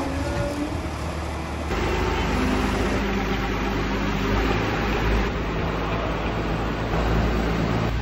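Marine travel lift's engine running steadily while the gantry drives and carries a boat, a low mechanical hum that gets louder about two seconds in.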